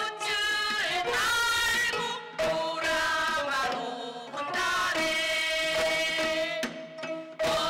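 Gayageum byeongchang: women's voices singing a Korean folk song while plucking the gayageum, the twelve-string Korean zither, with janggu hourglass-drum strokes keeping the beat.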